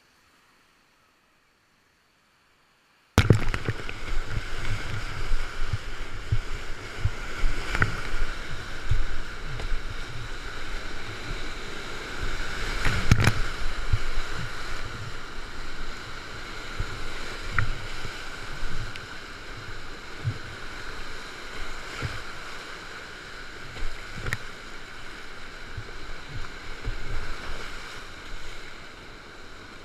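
Near silence for about three seconds, then a sudden cut to the loud, steady rush of big-water whitewater rapids heard from a kayak, with splashes and knocks of water against the boat and camera throughout.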